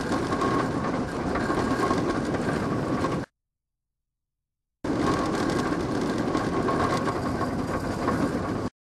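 Steady rushing noise of an inverted steel roller coaster under way: wind and the train running along its track. The sound cuts out to silence for about a second and a half about a third of the way in, and again briefly near the end.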